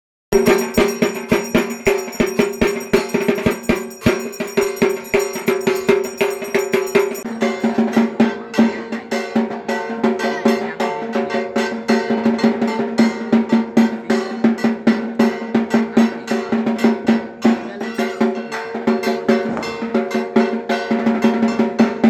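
Dhak drums beaten fast and dense, with a steady ringing tone underneath. A high metallic shimmer over the drumming drops out about seven seconds in.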